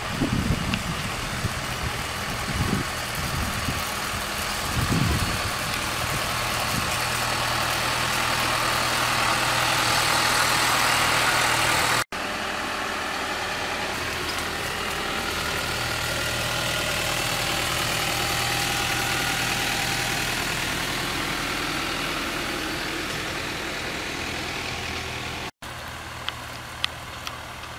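New Holland T4 tractor's diesel engine running steadily as it works the field, with a low, even hum. A few low thuds come in the first seconds, and the sound drops out for an instant twice.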